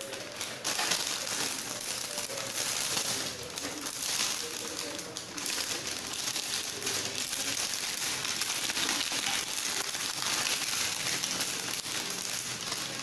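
Thin clear plastic bag crinkling and rustling as hands handle and turn it over.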